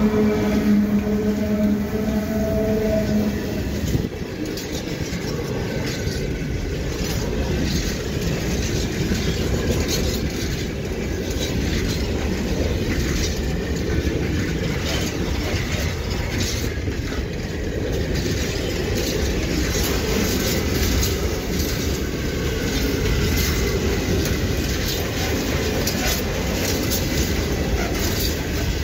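A freight train passes close by, hauled by a pair of EU07 electric locomotives whose horn is still sounding for the first few seconds and dips in pitch as they go by. A long string of high-sided freight wagons follows with a steady rumble and the clickety-clack of wheels over the rails.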